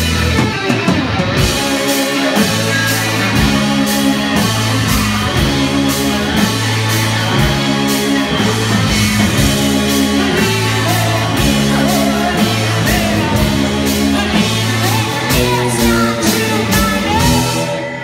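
Live rock band playing: electric guitar, electric bass, drum kit and keyboard, with a woman singing lead. The song winds down near the end.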